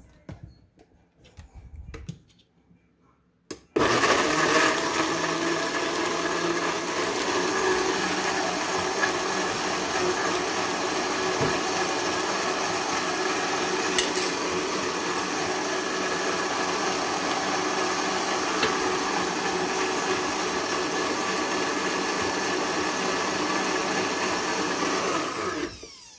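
Countertop blender motor starting about four seconds in and running steadily at high speed for about twenty seconds, pureeing soft boiled tomatoes and water into a thin sauce, then stopping just before the end. A few light knocks come before it starts.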